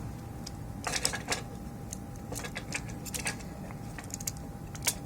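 Scattered sharp plastic clicks and taps in small clusters as a PS5 controller's motherboard is worked free of its side clips.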